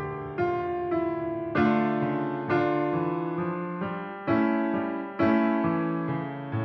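Piano music, electric piano in sound: chords struck about once a second, each left to ring and fade before the next.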